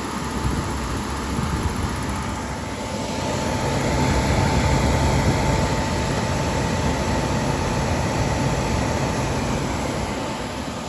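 Suburban SF-30 RV furnace's blower running with a steady whirring hum, growing louder a few seconds in and easing off near the end. The furnace is going through its ignition attempt without lighting: no propane is connected, and the owner suspects a faulty igniter.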